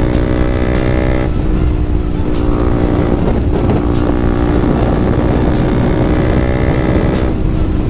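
Yamaha MT-15's single-cylinder engine and exhaust running hard at steady revs on the road, with wind rushing over the microphone. The engine note changes about a second in and eases off near the end.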